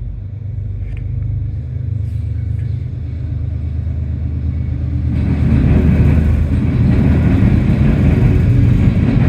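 CSX intermodal freight train approaching and passing: the low steady rumble of its diesel locomotives grows louder, and from about five seconds in a broad rushing of wheels on rail rises over it as the train draws level.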